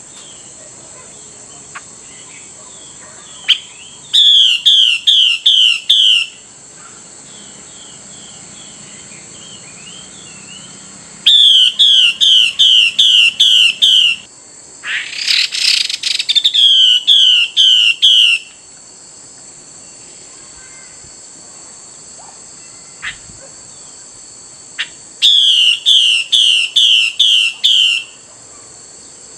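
Female Chinese hwamei calling in four bouts of six to eight quick, repeated, downward-slurred notes, with one harsh, rasping burst in the middle. A faint steady high whine runs behind.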